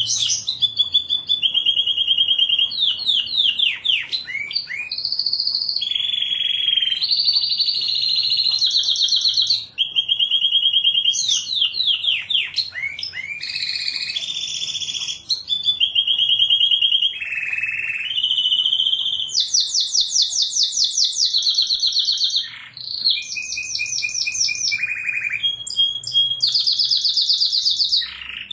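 Domestic canary singing a continuous song of rapid trills. Each run of quickly repeated notes holds one pitch for a second or two before switching to a new phrase, and some runs are steep downward sweeps.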